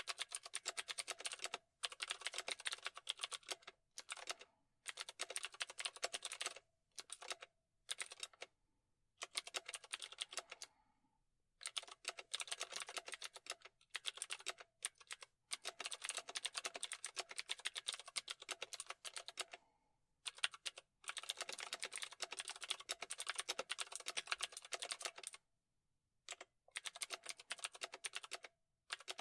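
Fast typing on a computer keyboard, in runs of rapid key clicks lasting from one to several seconds, broken by short pauses.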